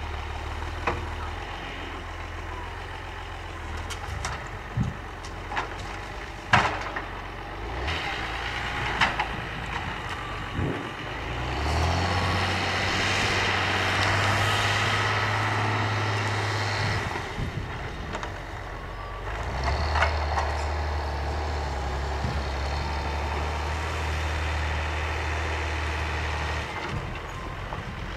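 HSM 904 skidder's 6.7-litre diesel engine running as its hydraulic crane handles logs, with several sharp knocks in the first half. The engine comes under load and grows louder twice, for about five seconds near the middle and again for about seven seconds later on.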